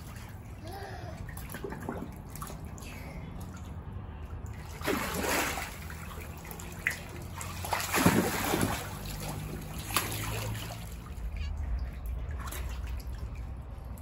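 Water sloshing and splashing in an inflatable paddling pool as a child wades through it, with two louder splashes about five and eight seconds in.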